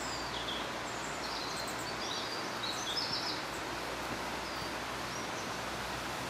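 Small birds giving short, high chirps and calls, scattered and busiest in the first half, over a steady rushing background noise.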